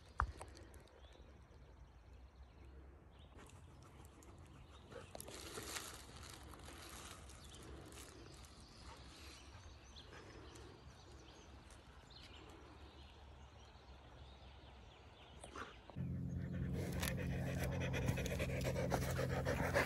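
Faint outdoor background at first. About sixteen seconds in, a dog starts panting loudly close to the microphone.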